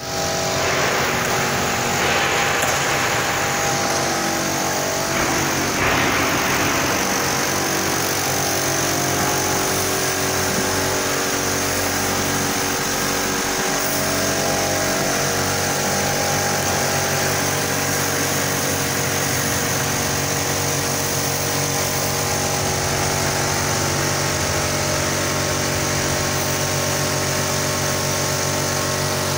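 Steady hum of wall panel production-line machinery running, with many fixed motor tones. Two brief hissing surges come in the first six seconds.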